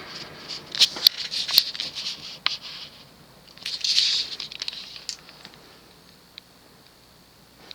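Cast-iron spinner ceiling fan coasting down after being switched off, with irregular clicking and rattling that dies away over the last few seconds.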